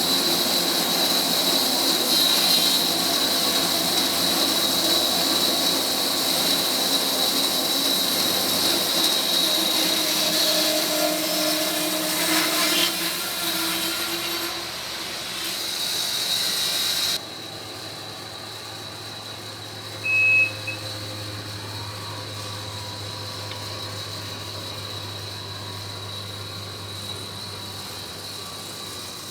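A portable sawmill running and cutting through a large black walnut log, a steady loud mechanical noise with a high whine. About 17 seconds in the level drops suddenly to a quieter steady hum, and a short high beep sounds a few seconds later.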